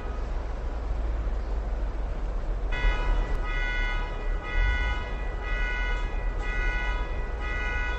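Car alarm sounding in a street: a pitched tone pulses on and off, about once a second. It comes in after a pause of about three seconds, over a low, steady rumble of street noise.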